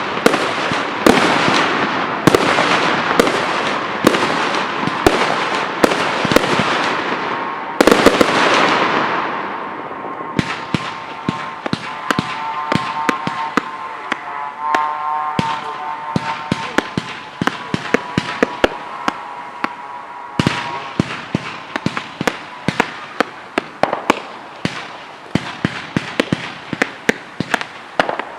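Fireworks display: rapid, dense bangs and crackling over a continuous hiss, with a very loud bang about eight seconds in. After that the barrage thins to scattered pops and cracks, with a steady whistling tone through the middle, and the volume slowly dies down.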